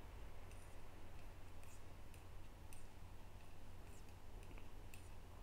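Metal knitting needles clicking lightly and irregularly against each other as stitches are purled, over a low steady hum.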